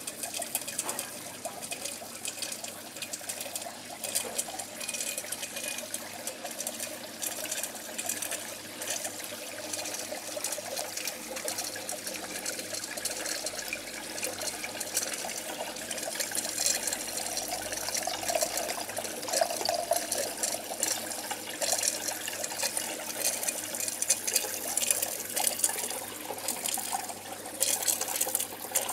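Water trickling from thin clear feeder tubes into the PVC pipes of a hydroponic system, a steady running trickle.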